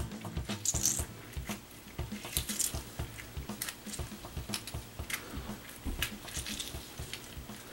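Half a lemon being squeezed by hand while a kitchen knife is twisted into its flesh to force out the juice: irregular small clicks and short wet squeezing sounds.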